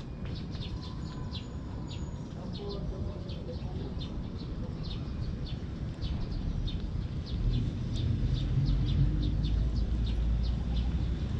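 A cat chewing and licking food from a coconut-shell bowl right at the microphone, making quick short clicks at about three a second. A low rumble grows louder in the second half.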